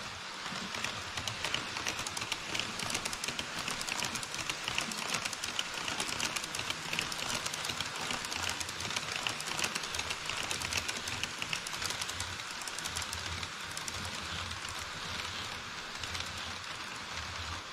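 HO scale model trains running over KATO Unitrack and a truss bridge: a rapid, continuous clicking of small metal wheels over the rail joints with a low rumble underneath. The clicking is densest in the first two-thirds and eases a little near the end.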